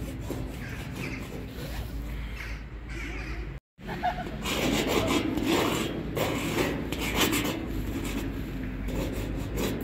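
Metal tip of a correction pen scratching and rubbing across a rough painted wall in quick strokes as a tag is written. The sound drops out briefly about a third of the way through, then comes back louder and denser.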